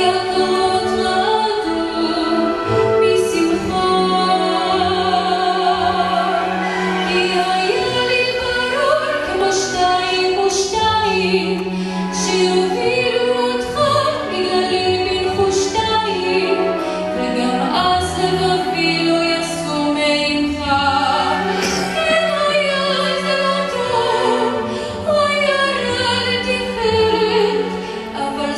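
A woman sings a Hebrew song solo into a microphone, accompanied by a symphony orchestra with strings.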